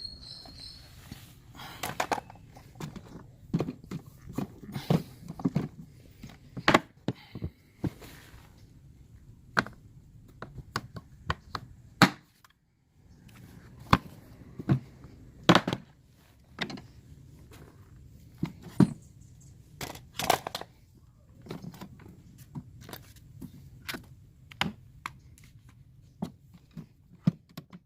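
Tools and organisers being set back into a Milwaukee Packout rolling tool box: irregular thunks, knocks and clatters of items being placed and shifted inside the box.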